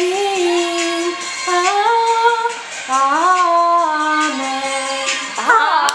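A group of women singing a slow song together in held, stepping notes, palms pressed together at the dinner table as for a sung mealtime grace. Near the end the singing breaks into several voices sliding up and down at once.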